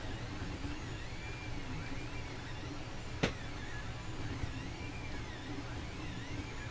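3D printer stepper motors whining in repeated short rising-and-falling tones as the print head moves back and forth, over a steady fan hum. One sharp click a little over three seconds in.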